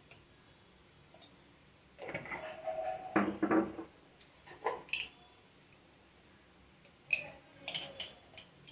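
Intermittent clinks and knocks of steel kitchen utensils, a few separate short clatters with brief ringing, as spices are handled off to the side of the stove.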